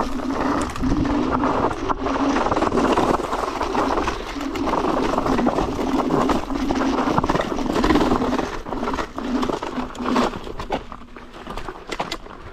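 Electric scooter riding noise: wind on the microphone and road noise, with a low hum that comes and goes in stretches of about a second. It eases off near the end.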